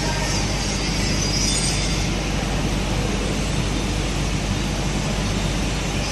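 Vibratory stress relief exciter running against a welded metal workpiece: a steady mechanical hum and rattle with a low drone.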